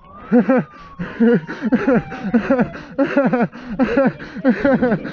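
A man laughing in a long run of short, breathy "ha" bursts, about three a second.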